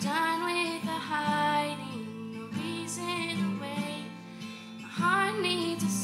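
A woman singing a worship song with long held notes, accompanying herself on acoustic guitar.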